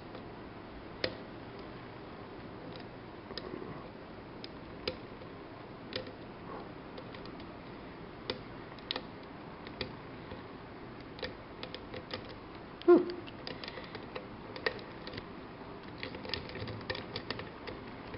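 Lock picking in a challenge padlock: scattered small metallic clicks and ticks of pick and tension wrench working the pins, growing denser near the end. About two thirds of the way through comes one louder short sound that falls in pitch.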